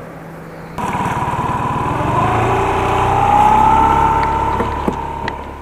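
A boat's outboard motor running: it comes in suddenly about a second in, rises in pitch and loudness with a whine over a fast low pulsing, then eases off and dies down near the end.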